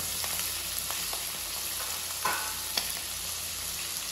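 Chicken livers frying in hot oil in a nonstick pan: a steady sizzle with scattered crackles, and a louder hiss about two seconds in as more livers go into the pan.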